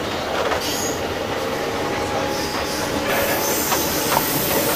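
Running noise of a JR East 201 series electric commuter train, heard from inside a passenger car: a steady rumble of wheels on rails with thin, steady whining tones over it.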